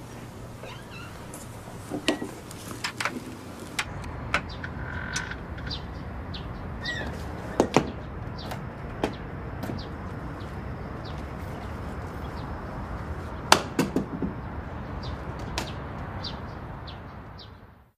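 Steady background hiss with scattered sharp knocks and clicks, some in quick pairs, and a few faint chirps; the sound fades out near the end.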